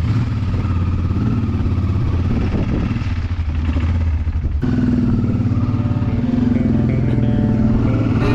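Honda Transalp 600 motorcycle's V-twin engine running steadily on the road, with an abrupt change in the sound about four and a half seconds in.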